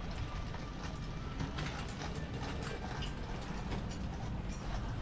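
Clothing market ambience: a steady low rumble with scattered irregular clicks and clacks.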